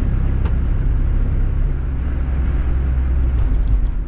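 Engine and road noise inside the cabin of a 1999 Mazda Miata being driven, a steady low drone whose pitch drops a little about two seconds in. The car has a misfire that the occupants put down to its spark plugs.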